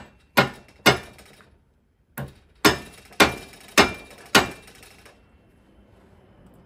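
A hammer tapping a Delrin punch to drive a linkage pin out of a Dillon RL550B reloading press's cast linkage: two sharp knocks, a short pause, then five more about half a second apart. The pin is tight and does not come free.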